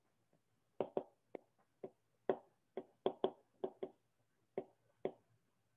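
Stylus tip tapping on a tablet surface while numbers are handwritten: about a dozen short, sharp clicks at an uneven pace.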